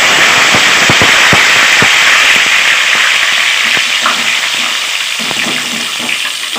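Fresh curry leaves dropped into hot oil, sizzling loudly with a rush of crackling pops as their moisture hits the oil. The sizzle starts suddenly and slowly eases off.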